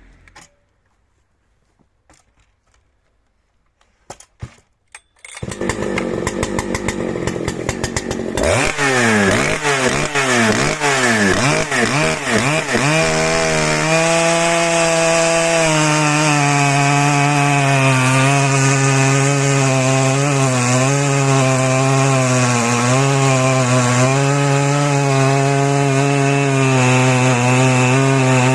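Big 120 cc-class two-stroke chainsaw: a few faint clicks, then the saw runs up about five seconds in and is revved up and down several times before settling into a steady, loaded cut through dry beech, its pitch wavering under the load.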